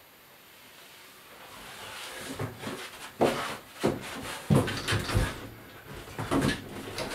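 Irregular knocks and thumps, about seven of them, like a door and door frame being bumped. They start about two and a half seconds in, after near silence and a slowly rising hiss.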